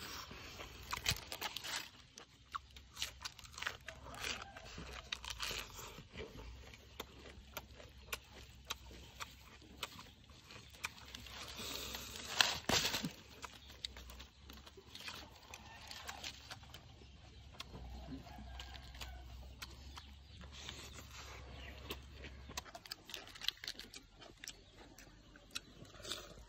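A cooked cow stomach and its green contents being torn and picked apart by hand on crumpled aluminium foil: scattered short wet tearing, scraping and foil-crinkling sounds, loudest around the middle, with eating sounds near the end.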